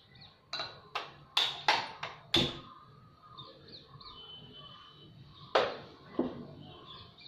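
Sharp knocks and clinks of kitchen things being handled: six in quick succession over the first two and a half seconds, then a louder one and a softer one near the end. Faint bird chirping can be heard behind them.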